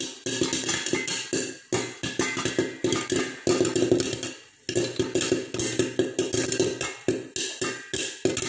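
Popcorn kernels popping inside a covered steel pot: many sharp, irregular pops close together, with a brief lull about halfway through.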